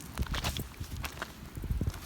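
Footsteps on the ground, irregular low thuds with a few sharp clicks among them.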